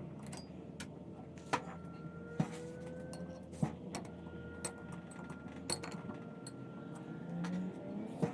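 Light metallic clinks and taps of tools and engine parts being handled, about a dozen scattered through, over a faint steady hum.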